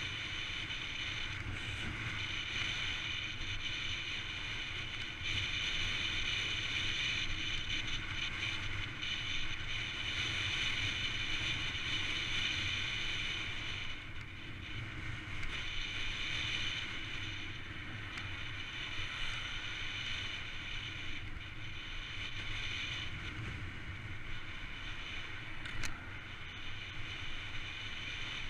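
Wind rushing over a handlebar-mounted camera and a mountain bike's tyres rolling on wet tarmac during a fast downhill descent, a steady rush with low road rumble. A single sharp click sounds near the end.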